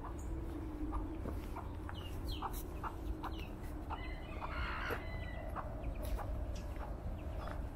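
Chickens clucking in short, repeated calls, with a few short falling chirps of small birds.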